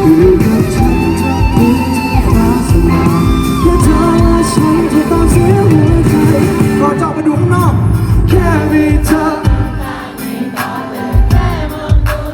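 Live pop-rock band playing through a PA, with a wavering sung melody over guitar, bass and drums; the band thins out for the last few seconds.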